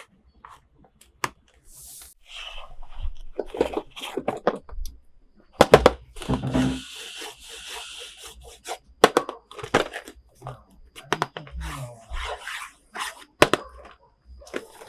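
Plastic toy packaging and parts being handled: a run of clicks, taps and crinkles, with a longer tearing sound about six seconds in.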